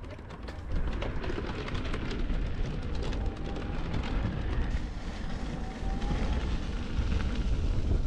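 Wind buffeting the microphone over the rolling rumble of an InMotion V12 electric unicycle. For about the first four seconds a rapid clatter of ticks as the wheel crosses boardwalk planks, then a steadier rumble on the sandy path.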